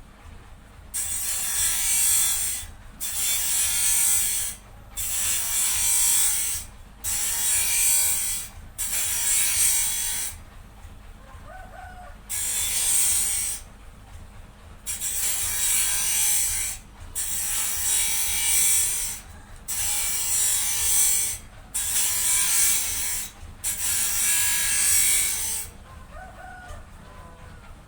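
Wood being worked by hand in long scraping strokes, about a dozen strokes of one and a half to two seconds each with short pauses between, and a longer break about ten seconds in.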